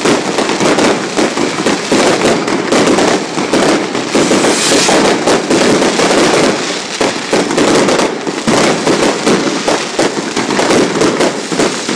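Aerial fireworks going off in a continuous rapid barrage of bangs and crackles, loud throughout, with a brief sharper hiss near the middle.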